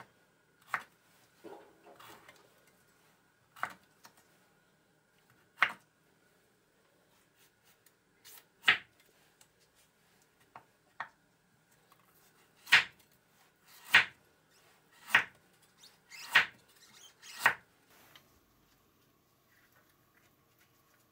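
Kitchen knife cutting cucumber and carrot on a cutting board, each stroke a sharp knock of the blade against the board. The knocks are scattered in the first half, then come as a run of five, about one a second, near the end as the carrot is sliced thinly.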